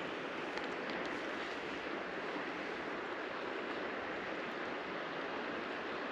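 Steady rush of flowing creek water, with a few faint ticks about a second in.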